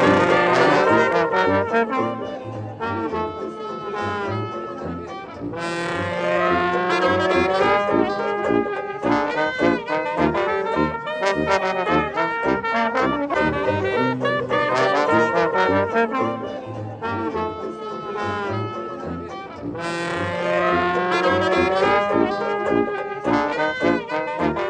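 A band with brass instruments playing a tune over a low bass line, with the brass coming in strongly again about six seconds in and near the end.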